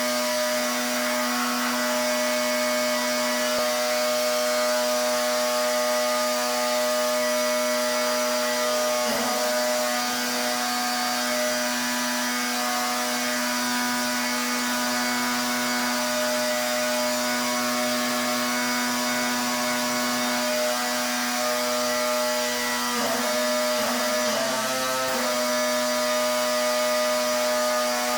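Pressure washer running steadily: a constant motor hum under the hiss of the water spray, wavering briefly about nine seconds in and again twice near the end.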